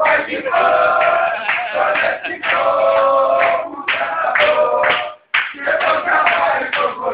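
A group of men singing together, a chant sung in unison, with a brief sudden break about five seconds in.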